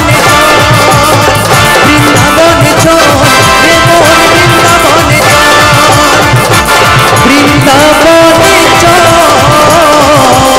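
Loud live band music for a Bengali devotional song: a melody with gliding notes over a steady beat.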